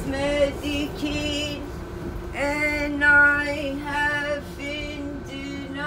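A woman singing without accompaniment, holding long notes in phrases with short breaks between them, over the steady hum of a moving subway car.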